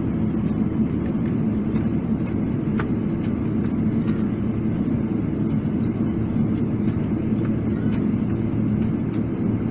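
Steady low rumble inside the cabin of a Boeing 777-300ER taxiing, its GE90 engines at low taxi thrust. The level holds even throughout, with no spool-up.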